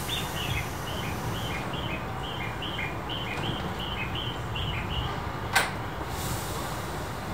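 Repeated short two-note chirping, a high note then a lower one, about three pairs a second for roughly five seconds, over the steady low hum of a stationary train. A single sharp click comes about five and a half seconds in.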